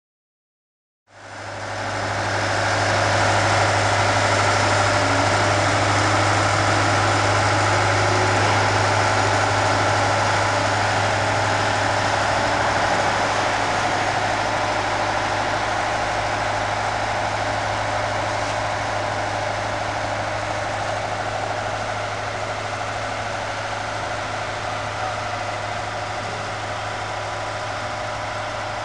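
A large engine running steadily with a strong low hum, starting abruptly about a second in.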